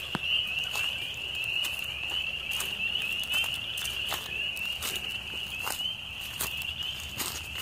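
Frogs calling in a dense, steady, high-pitched chorus, with scattered sharp clicks and snaps over it.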